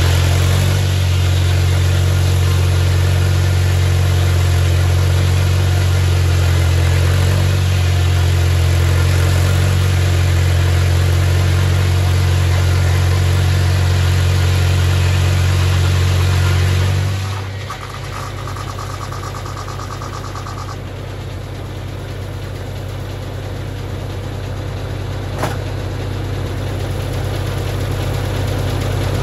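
Straight-piped Farmall Super M's four-cylinder engine running hard under load while the sawmill it drives cuts through a log. About two-thirds of the way through the load comes off: the engine runs lighter and quieter, then slowly builds again near the end, with one sharp click shortly before.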